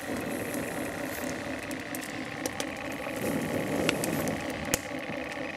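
Fire burning on a model fuel tank, with a few sharp crackles and pops, over a steady mechanical hum.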